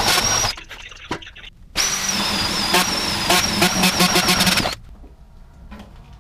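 Cordless drill/driver running in two spells, a short one that stops about half a second in and a longer one from about two seconds in to nearly five, with a steady high whine and clicks.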